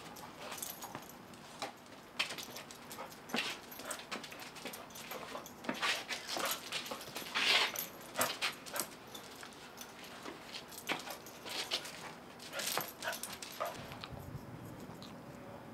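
Small dog whimpering and giving short yips, off and on, while excited during play and treat-begging.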